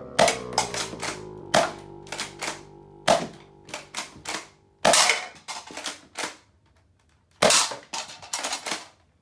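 Nerf Rival Takedown foam-ball blaster being pumped and fired over and over: a string of sharp clacks and pops, several a second, with two much louder shots, one midway and one later on after a short pause.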